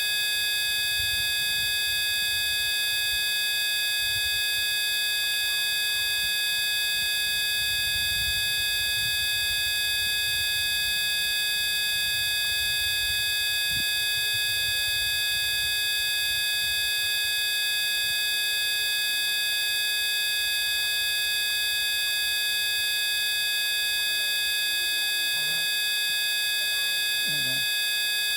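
A steady electronic drone made of many constant tones sounding together, buzzer-like and unchanging, with a faint low rumble coming and going underneath.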